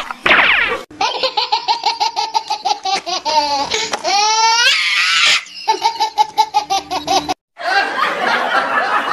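Laughter, a long run of rapid 'ha-ha' pulses at a steady pitch, rising in pitch about four seconds in and running on again after a brief break.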